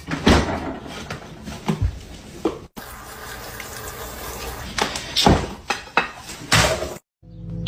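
Water from a kitchen tap running and splashing onto a plate of food, with several knocks and clatters.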